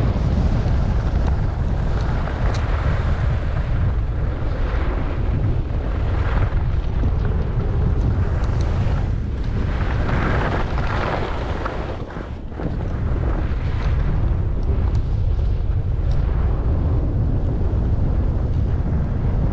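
Wind rushing over the microphone of a skier moving downhill, a heavy low rumble, with the hiss and scrape of skis on snow swelling and fading through the turns. It eases briefly about twelve seconds in.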